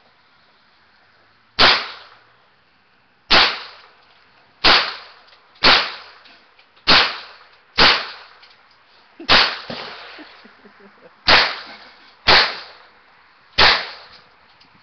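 Ten single gunshots fired one at a time at an irregular pace, roughly one to two seconds apart, each a sharp crack with a short echo behind it.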